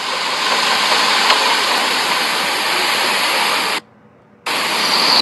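Steady, loud hiss of noise with no speech in it. It cuts out for about half a second near the end while playback is paused, then comes back with a thin high whine over it.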